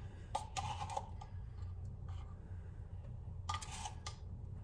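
A few short, light clicks and scrapes of a metal measuring teaspoon against a baking powder can as the powder is scooped and levelled, over a steady low hum.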